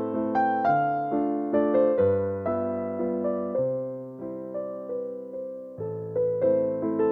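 Background piano music: a gentle melody of struck notes and chords, each fading before the next.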